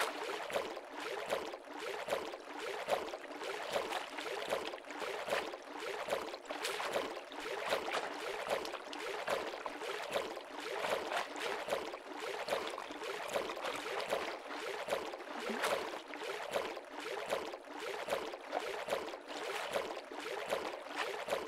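Water-splash sound effects: continuous sloshing and splashing made of many small overlapping splashes, with no let-up.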